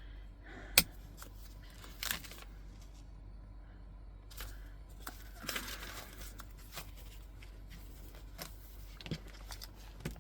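Metal rings of an A6 ring-bound planner snapping open and shut, with paper pages rustling as they are moved on and off the rings. The sharpest snap comes about a second in.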